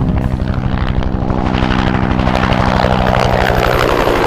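Bell AH-1 Cobra attack helicopter flying close, its rotor beating fast and evenly over a steady engine hum. Near the end the hum fades and a rushing sound grows.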